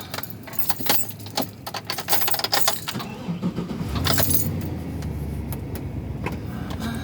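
Keys jangling and clicking for the first few seconds. About four seconds in the van's engine starts and runs at a steady idle.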